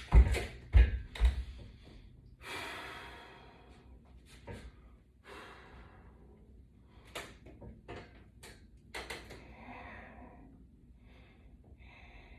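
Three heavy knocks in the first second and a half as the resistance-band wall attachment is set up for sitting presses, followed by a long exhaled breath and scattered small clicks of the bands and latch hardware during the exercise.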